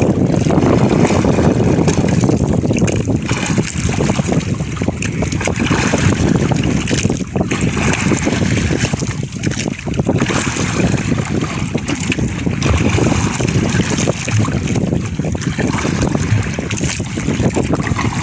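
Wind rushing across the microphone over choppy sea waves washing against a small outrigger boat.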